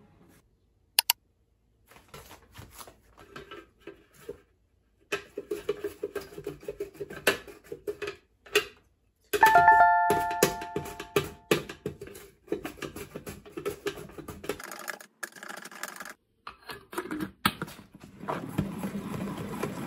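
Scattered clicks and knocks of things being handled, and a bell-like chime that strikes once about nine seconds in and rings out over two or three seconds.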